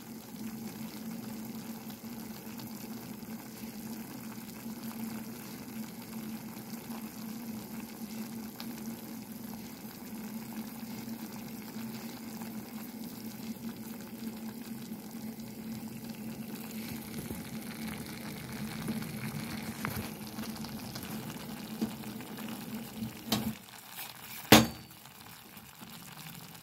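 Cabbage and beef stew cooking in a pan on the stove, a steady simmering and sizzling of water and a little oil, with a low hum under it. About two seconds before the end there are a couple of clicks and one sharp knock, after which the hum stops.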